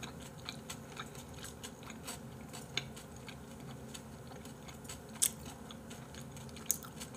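A person chewing raw beef close to the microphone: soft, wet mouth clicks and smacks, with a few louder clicks, the loudest about five seconds in.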